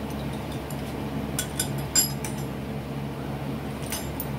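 Steel clamp hardware and a wrench clinking against a milling machine's iron table as strap clamps and blocks are loosened and lifted off: a few sharp metallic clinks, clustered around the middle and again near the end, over a steady low hum.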